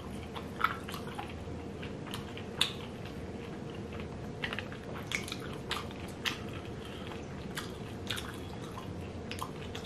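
People chewing dumplings: irregular smacking and clicking mouth sounds, the sharpest about half a second and two and a half seconds in, over a steady low hum.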